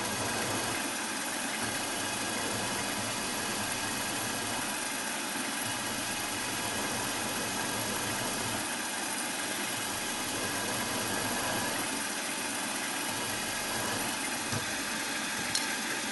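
Small milling machine's spindle motor running steadily with no load, the centre drill clear of the work while swarf is brushed off. A light click comes near the end.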